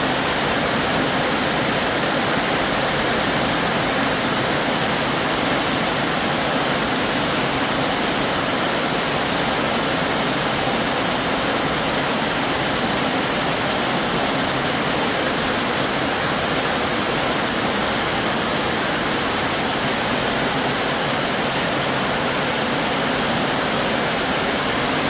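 Heavy rain falling steadily on a corrugated metal roof and the yard around it: an even, unbroken rush of noise.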